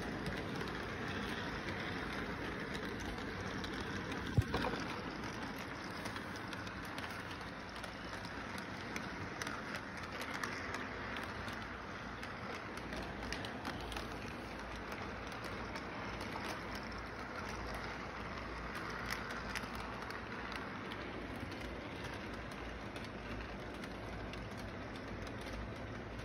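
Model train running around its track, a steady rolling noise of wheels on rails with faint clicks, and one sharper click about four seconds in.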